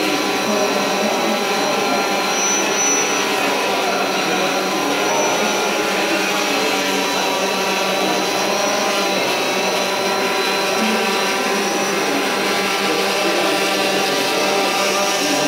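DJI Phantom 4 quadcopter hovering, its four motors and propellers giving a steady, many-toned buzzing whine.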